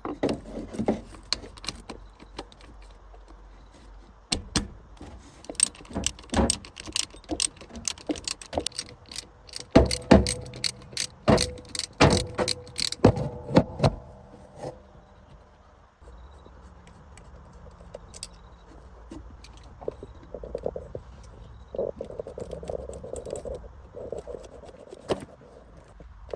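Metal hand tools and car parts clinking and knocking as they are handled and worked, a quick run of sharp knocks in the first half. It turns to quieter handling after about sixteen seconds, with a few brief ringing tones.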